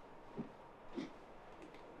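Soft massage sounds: two brief, low thuds of hands on the body, about half a second apart, the second with a faint click, then a couple of faint ticks.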